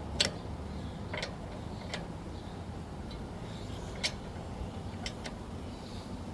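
Scattered sharp clicks and taps from tire-changing tools being handled at a jacked-up car wheel, about six in all at irregular intervals, over a steady low outdoor rumble.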